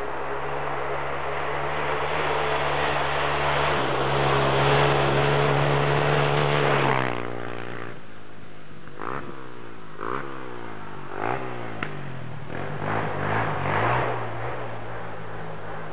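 Honda TRX300EX quad's single-cylinder four-stroke engine held at steady high revs and growing louder, then the revs drop abruptly about seven seconds in, followed by several quick revs up and down.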